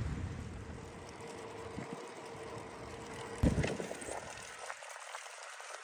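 Faint wind noise and low rumble on the microphone of a moving bicycle, with a single knock about three and a half seconds in; the low rumble drops away near the end.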